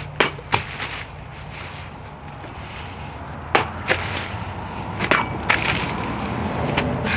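A katana blade slicing through hanging plastic bottles filled with liquid: a series of sharp cutting smacks, mostly in close pairs (near the start, about three and a half seconds in, and about five seconds in), with liquid spattering. A steady low hum runs underneath.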